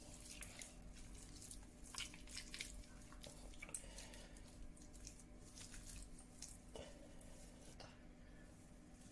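Faint wet squishing and light clicks of hands mixing raw chicken pieces with sliced bell peppers in a dish, busiest in the first half and thinning out later.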